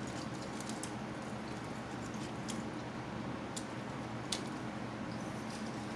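Close-miked chewing of a steak burger: soft wet mouth clicks and smacks scattered over a steady low background hum, with one sharper click about four seconds in.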